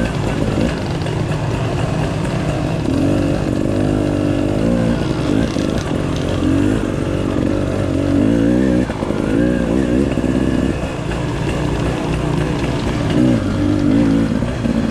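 Dirt bike engine running hard on the trail, its pitch rising and falling over and over as the throttle is opened and closed.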